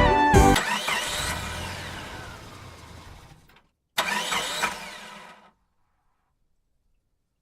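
Two engine-start sound effects: a car engine turning over and revving, the first fading out over about three seconds, the second starting about four seconds in and fading out after a second and a half, with dead silence between them. A song ends in the first half-second.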